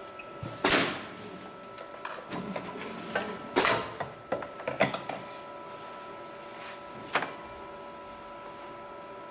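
HIGHTEX 7273PLK automatic pattern sewing machine standing between cycles with a steady hum and whine, broken by sharp hisses of air and clicks from its pneumatic clamp. The loudest comes about a second in and another near four seconds, with smaller ones between and one near seven seconds. There is no stitching rhythm.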